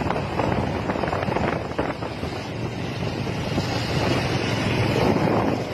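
Wind buffeting the phone microphone, with a motorcycle engine running underneath as a steady low hum.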